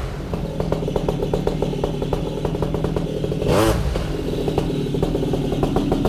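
Air Conception Tornado 280 paramotor's two-stroke engine idling while being warmed up during break-in on a brand-new engine, with one brief throttle blip that rises and falls a little past halfway.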